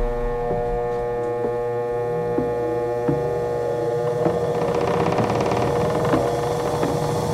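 Harbor Freight bench grinder's electric motor running, a steady hum with occasional light ticks.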